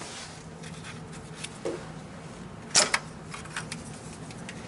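Plastic wiring connector being worked off the boost pressure sensor at the intercooler outlet: a few light clicks and rattles, the loudest a sharp click about three seconds in, over a steady low hum.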